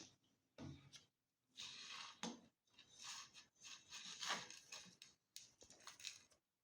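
Faint, scattered scrapes and rustles of small objects being handled, irregular and brief.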